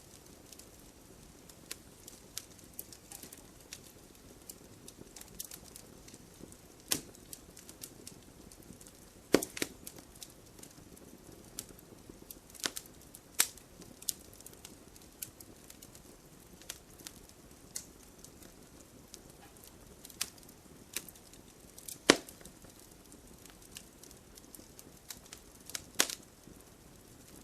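Burning firewood crackling: scattered sharp snaps and pops at irregular intervals, four of them louder than the rest, over a soft low rustle of the fire.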